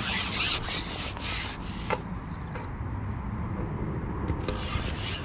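Wind rumbling on the microphone, with brief rubbing and rustling handling noises near the start and again near the end, and a single click about two seconds in.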